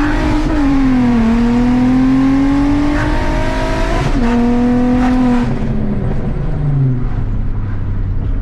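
VW MK4 GTI's 24-valve VR6 engine, tuned and breathing through downpipes, a cat delete and a straight pipe, pulling hard under full throttle. Its pitch climbs, drops at an upshift about a second in, climbs again to a second upshift about four seconds in, then falls away as the throttle is lifted near the end.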